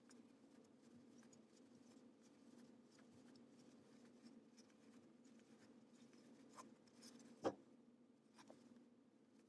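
Near silence: faint scratchy rubbing of a crochet hook working chunky blanket yarn over a low steady hum, with a few soft clicks and one sharper click about seven and a half seconds in.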